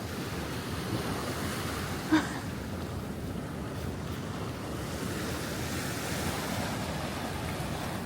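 Waves washing on the shore, with wind buffeting the microphone. One brief sharp sound, the loudest moment, comes about two seconds in.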